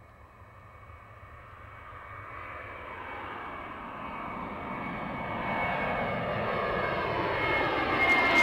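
Airbus A320 jet engines at take-off power as the airliner climbs out, growing steadily louder as it approaches, with a steady high whine over the rumble.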